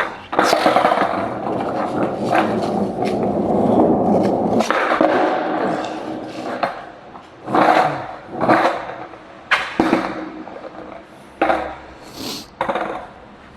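Skateboard wheels rolling on wet pavement for about four seconds, then a run of sharp board knocks and clatters, several over the next eight seconds, as the board is popped and lands.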